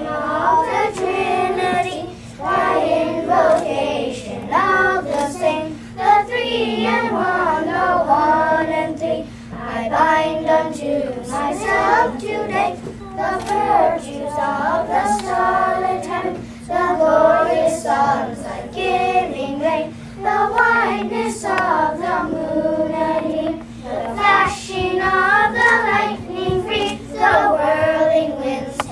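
A group of young children singing a song together in unison, in phrases with held notes and short breaks between lines.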